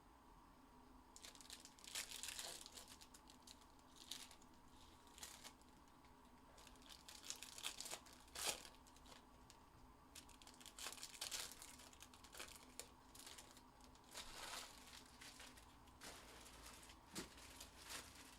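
Trading-card pack wrappers being crinkled and torn open by hand, in short scattered rustling bursts.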